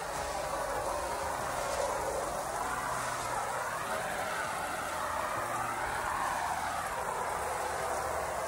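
Steady rushing hiss of water spraying from a hose onto the wet floor of a vinyl pool, its pitch slowly wavering up and down.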